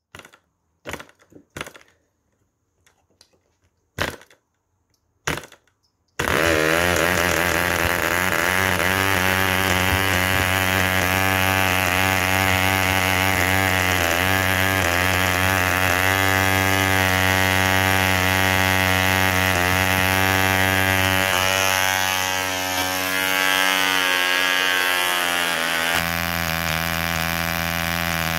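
A Davies Charlton 1cc model diesel engine being hand-flicked by its propeller, giving a few short sharp pops, then catching about six seconds in and running steadily at high speed with an even, buzzing note that shifts slightly near the end.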